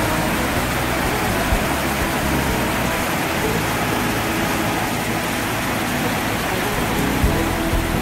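Steady rush of whitewater: a river's rapids pouring over and between boulders below a dam spillway.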